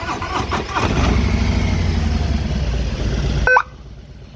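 Police Harley-Davidson Electra Glide's engine, a 114 cubic inch V-twin, idling with a low steady rumble. About three and a half seconds in, a short blast from its electronic siren horn cuts in, and then the rumble cuts off.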